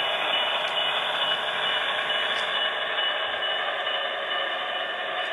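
Steady diesel prime-mover running sound from the onboard sound decoder of an HO-scale Broadway Limited Imports Paragon Alco RSD-15 locomotive, played through the model's small speaker.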